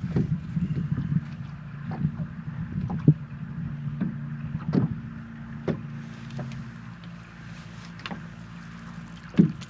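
Wind on a fishing boat, heavily processed to take the wind noise out, leaving a steady low hum. Scattered knocks and clicks sound on the boat, more of them in the first few seconds.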